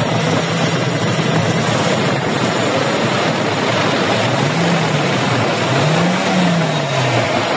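Toyota 1RZ four-cylinder petrol engine running, revved up and let back down twice in the second half, now starting and running after a no-start fault in its fuel supply was fixed.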